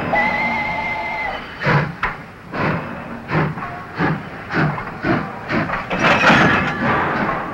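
A steam locomotive's whistle holding a steady two-tone blast that cuts off about a second in, followed by the locomotive's exhaust chuffs with hissing steam, a little under two a second and quickening.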